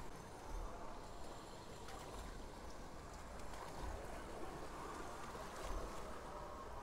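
Floodwater sloshing and splashing steadily around the wheels of cycle rickshaws wading through a flooded street.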